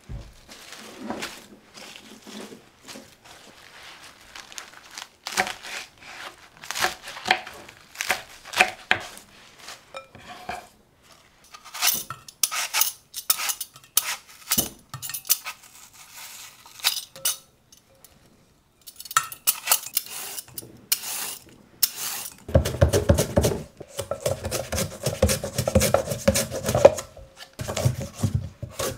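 Kitchen prep sounds: clinks and knocks of lettuce being handled in stainless steel bowls, and the scrape of a vegetable peeler taking the skin off an apple. From about three quarters of the way in, a fast, steady run of scraping strokes as a carrot is slid back and forth over a hand-held plastic mandoline slicer into a glass bowl.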